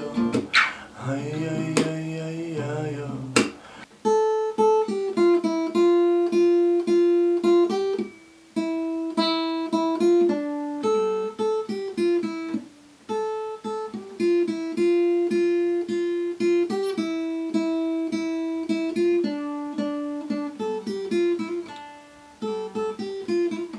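Steel-string acoustic guitar playing in D minor: a few strummed chords, then from about four seconds in a fingerpicked melody of single notes over the chords.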